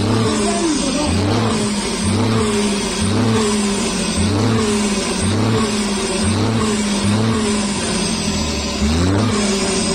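Semi-truck diesel engine revved over and over through its exhaust, in quick throttle blips about once a second, with the pitch rising and falling each time.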